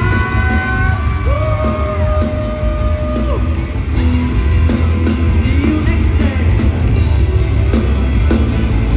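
Loud live concert music through a PA, with a steady heavy bass and long held sung notes, and a crowd yelling over it.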